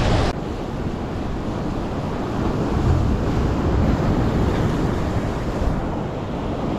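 Sea surf washing, with wind rumbling on the microphone.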